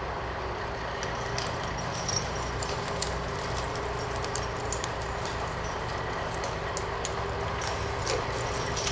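Snow-removal trucks' diesel engines idling steadily in the garage: a low even running sound with a faint steady whine, with scattered light ticks over it.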